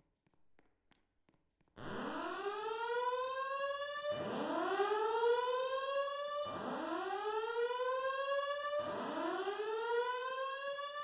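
Fire alarm voice-evacuation system sounding its whoop alert tone: starting about two seconds in, four rising sweeps, each climbing in pitch over about two seconds and then starting again from low. This is the evacuation signal that alternates with the spoken fire emergency announcement.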